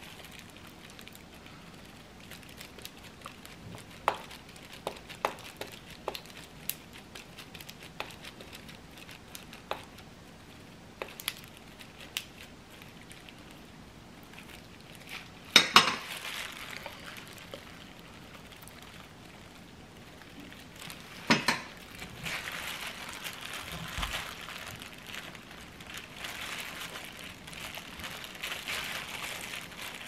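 Quiet kitchen handling: a wooden spoon scraping and lightly clicking against a small bowl while honey is spooned into a hollowed pear, with two sharper knocks about halfway through and again some seconds later. Near the end, plastic food-prep gloves crinkle as the hands handle the filled pear.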